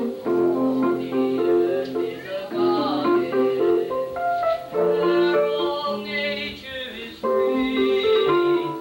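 Piano playing a tune, with voices singing along.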